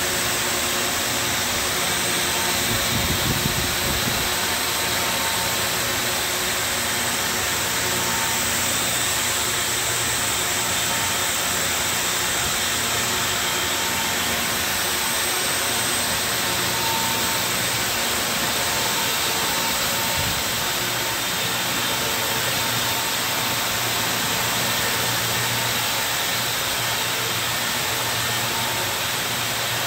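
Circular knitting machine running: a steady mechanical whir with a constant hum under it, and a brief low thump about three seconds in.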